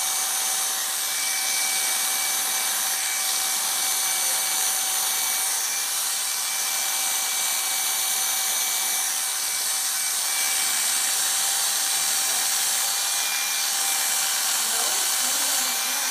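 Corded electric dog clippers running steadily with a constant whine, the blade cutting through a miniature schnauzer's curly coat.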